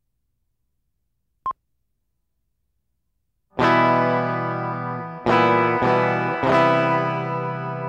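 Opening theme music on distorted electric guitar: a chord struck about three and a half seconds in and left ringing, then three more struck in quick succession, each dying away. Before it, one brief click about a second and a half in.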